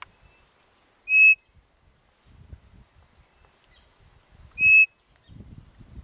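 Wooden quail call (pio de codorniz) blown twice: two short, clear whistled notes of steady pitch, about three and a half seconds apart, imitating a quail.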